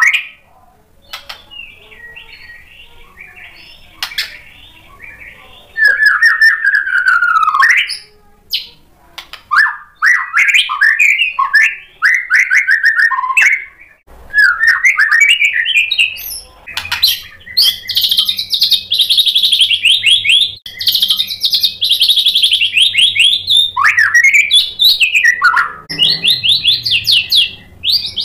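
White-rumped shama singing a loud, varied song of whistled notes that sweep up and down, broken by fast rattling trills. A stretch of softer notes comes near the start, and the full song resumes about six seconds in.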